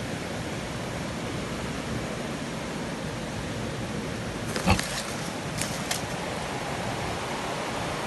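Steady rush of running water in the background, with a short cluster of cracks and rustles about halfway through as a hand handles the bamboo sticks of a cord snare trap.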